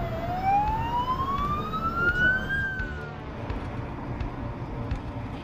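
Ambulance siren in a slow wail, one rising sweep of about two and a half seconds that cuts off suddenly, over a low rumble of road and engine noise that continues alone afterwards.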